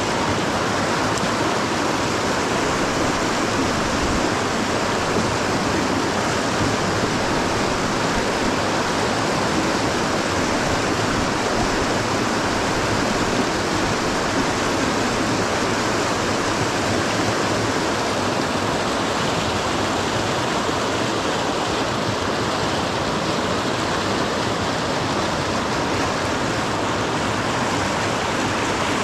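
River water rushing steadily over rocks, the South Platte running through Cheeseman Canyon, close to the microphone.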